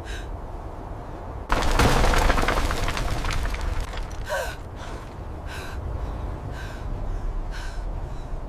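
A deep steady rumble underneath. About a second and a half in comes a sudden loud crash of falling rubble with crackling debris, fading over a second or so. After it, short gasping breaths come about once a second.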